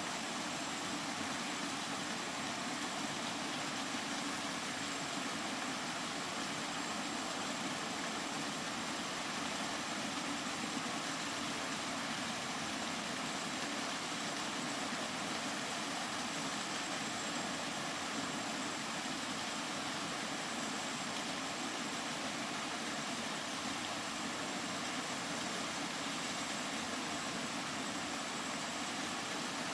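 Steady rain: an even, unbroken hiss that holds at one level.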